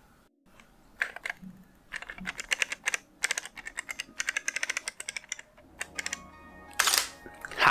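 Mirrorless camera shutter firing in several rapid bursts of clicks, about ten a second in the longer runs. Near the end, music comes in with a loud whoosh.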